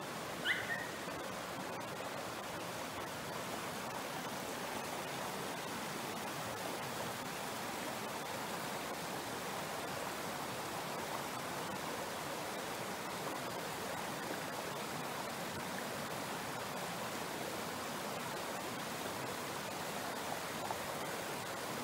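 Mountain stream flowing steadily, with a brief high rising chirp about half a second in.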